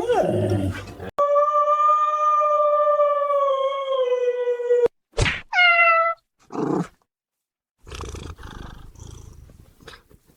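Cat yowling: one long, steady call lasting almost four seconds, then a short sharp call and a shorter call falling in pitch.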